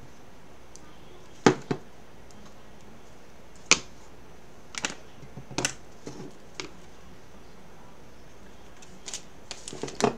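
Scattered light clicks and taps, about a dozen over several seconds, from a plastic multi-purpose tool and chalk paste being handled on a tabletop while paste is swiped across a stencil.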